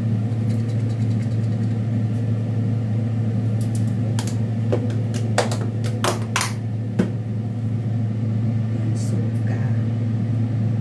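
A steady low hum from a kitchen appliance runs throughout, with a handful of sharp clicks and clinks between about four and seven seconds in.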